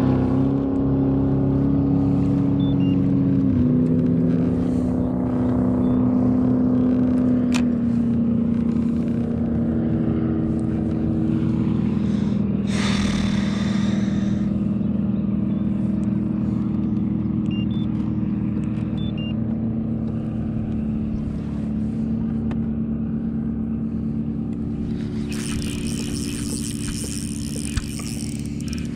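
Boat motor running steadily, a hum at a near-constant pitch that dips slightly about three and a half seconds in. A short rushing hiss comes about thirteen seconds in, and a longer one near the end.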